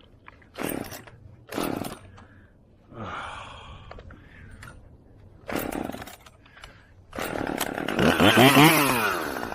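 Husqvarna T540XP two-stroke top-handle chainsaw being pull-started: a few short pulls of the starter cord, then the engine catches about seven seconds in and revs up and back down. It is being held on the throttle to keep it from dying, a problem with this saw.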